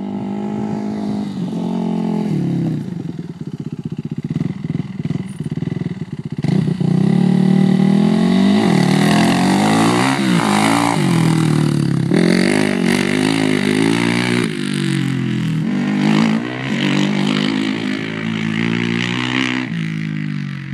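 Suzuki LTR 450 quad's single-cylinder four-stroke engine revving up and down again and again, rough and crackly at first, then louder and harder from about a third of the way in. This is the hard acceleration under which the owner hears a weird noise.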